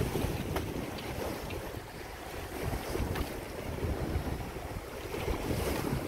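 Wind buffeting the microphone over the rush of water along a sailboat's hull as it sails through a chop. A few faint ticks come through now and then.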